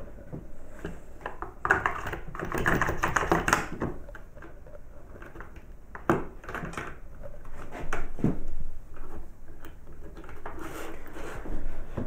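Clicks, knocks and rattles of a metal toggle clamp on a plywood base being handled and set down on a wooden board: a dense run of clatter about two seconds in, then a few single sharp knocks.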